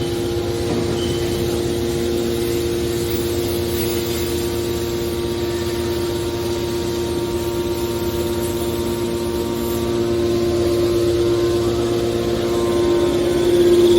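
Hydraulic car baler running, a steady machine hum with a constant whining tone from its hydraulic power unit, growing a little louder over the last few seconds.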